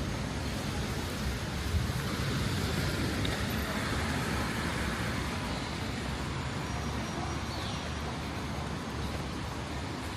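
Road traffic on a city street: a steady rumble and hiss of passing cars, swelling as one goes by a few seconds in.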